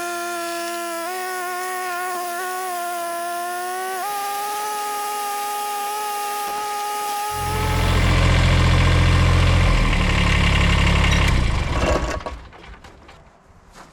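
Compact machine's engine running: a whine that steps up in pitch twice, then a deep steady rumble. The sound dies away about 12 seconds in, leaving a few light knocks.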